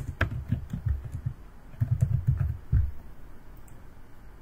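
Typing on a computer keyboard: two short runs of keystrokes, one at the start and another about two seconds in, each key giving a click with a dull thud.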